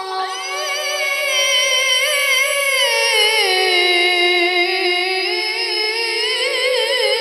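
A boy's voice reciting the Quran in the ornamented, melodic tilawah style, amplified through a microphone. He holds one long unbroken phrase with wavering ornaments; the melody slides down in the middle and climbs again near the end.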